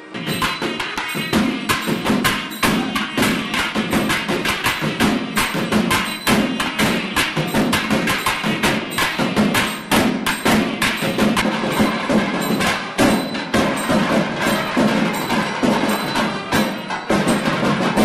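South Indian temple band: thavil barrel drums beaten in fast, dense strokes, with reed pipes playing along.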